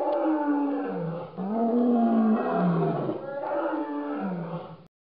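Dinosaur roar sound effect: three long growling roars, each falling in pitch, the last cutting off just before the end.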